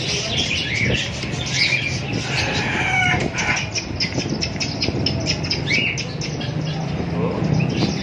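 Many caged birds chirping and twittering in short calls. About halfway through comes a run of quick fluttering wingbeats.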